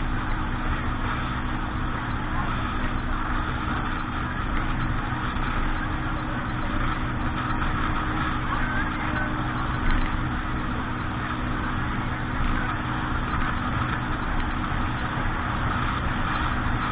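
An engine running steadily, with a constant rushing noise over it.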